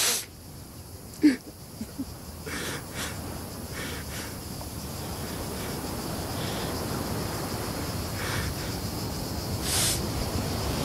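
A man sobbing: a short catch in the voice about a second in, then several sharp sniffing or shuddering breaths. Underneath, a low rumbling noise grows steadily louder.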